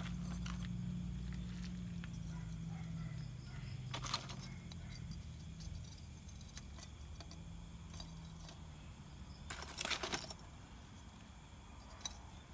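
Small kindling fire being lit and tended in a stone stove pit: faint scattered clicks and scrapes of dry twigs and leaves being handled, with a short scraping rustle about ten seconds in. A low hum fades out over the first few seconds.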